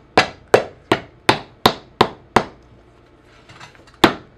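Hand hammer striking the rubber sole of a boot in quick, even blows, about three a second, to seat a freshly cemented sole onto the welt. The blows stop for about a second and a half after the middle, then start again near the end.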